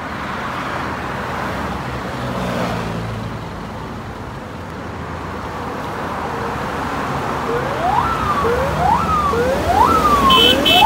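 Steady expressway traffic noise from passing cars and trucks. In the last few seconds a vehicle siren starts up, four quick sweeps, each rising sharply and falling back, about one a second.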